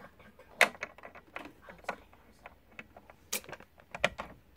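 Scattered clicks and knocks of an Ethernet cable's plug being pushed into a router's broadband port and handled, the loudest about half a second in and about three seconds in.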